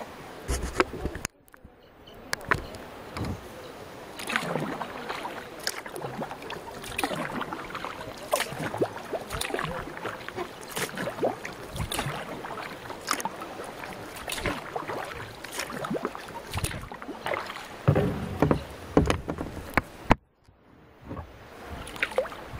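Canoe paddles dipping and splashing in sea water in uneven strokes, with water sloshing against the boat. The sound drops out abruptly twice, about a second in and near the end.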